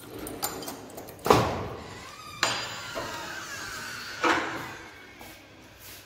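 Metal sliding bolt on a wooden door drawn back and the door opened: a series of sharp metallic clanks and knocks with some scraping between them, the loudest just over a second in.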